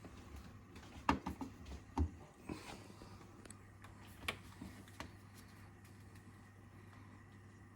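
AquaEl Ultra 1400 canister filter running with a faint, steady low hum. Several light clicks and knocks sound over it in the first five seconds.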